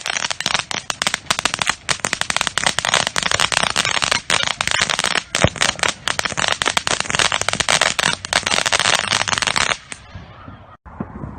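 Fireworks crackling: a dense, rapid run of pops and small bangs that stops abruptly near the end.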